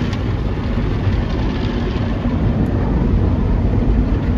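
Automatic car wash running over the car, heard from inside the cabin: water spray and spinning cloth brushes scrubbing the windows and body in a steady, loud rush with a low rumble.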